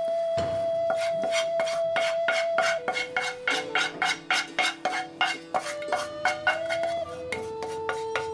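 Background music with held notes over a quick, regular beat, alongside a wooden spoon scraping sauce from a frying pan into a bowl.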